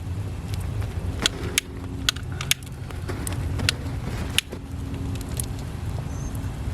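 Campfire crackling, with about ten sharp pops scattered irregularly through it, over a steady low hum.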